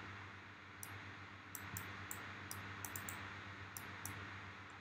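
Faint, irregular clicking of a computer mouse, about ten clicks, over a low steady electrical hum.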